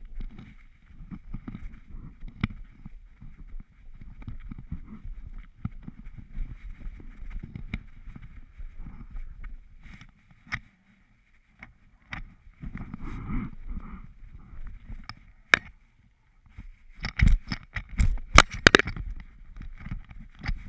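Rustling and bumping from a camera strapped to a dog's tracking harness as the dog moves through grass, with a near-quiet pause about halfway through and a burst of loud, sharp knocks near the end.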